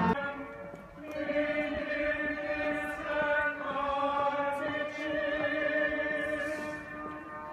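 A group of voices singing slowly together in procession, with long held notes changing every second or two. The singing fades somewhat near the end.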